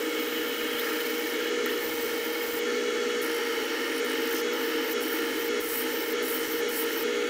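Electric rotary whetstone running with a steady hum while a kitchen knife's edge is ground against its wet, water-fed wheel, grinding chips out of the blade.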